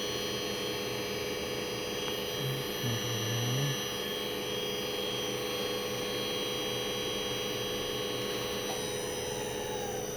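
Electric motor running on a repaired Emerson SP3401 variable-frequency drive during its test run, giving off a steady whine of several tones over a hum. A brief low hum swells about three seconds in. Near the end some of the tones begin to fall in pitch as the motor slows.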